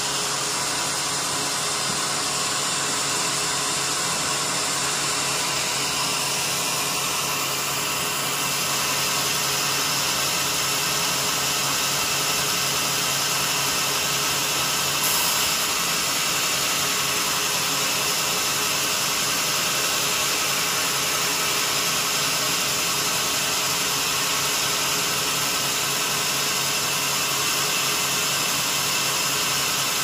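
Vertical band sawmill running steadily, its band blade ripping lengthwise through a jackfruit wood beam with a constant hiss and hum of the blade and motor. A low hum drops out a little past halfway.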